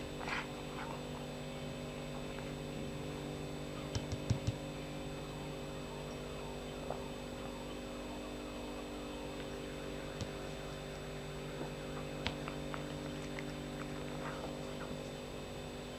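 A cat chewing honey fungus mushrooms: a few soft clicks, with a quick cluster about four seconds in, over a steady electrical hum.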